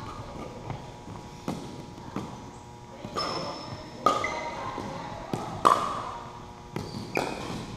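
Pickleball play echoing in a gym: about eight sharp, irregularly spaced pops of paddles hitting the plastic ball and the ball bouncing on the hardwood floor, several with a short ringing after them.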